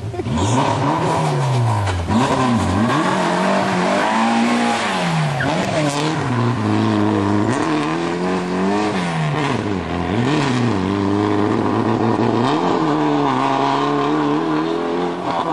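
Rally car's engine revving hard, its pitch climbing and dropping again and again as the car drives out of a hairpin and accelerates away.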